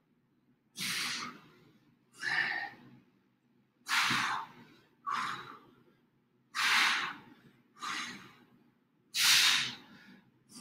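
Heavy, rhythmic breathing of a person doing diamond push-ups: a forceful breath followed by a weaker one, in pairs about every three seconds, seven breaths in all.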